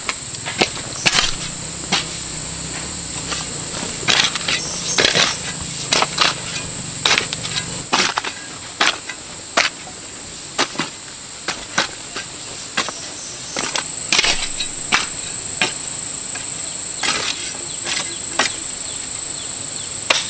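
Steady high-pitched drone of insects, with irregular sharp knocks and taps through it, some in quick clusters; the knocks are the loudest sounds. A faint low hum underneath stops about eight seconds in.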